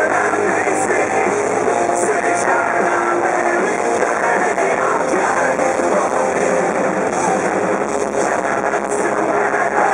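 Punk rock band playing live through a festival PA: distorted electric guitars, bass and drums, with a woman singing over them. Loud and continuous.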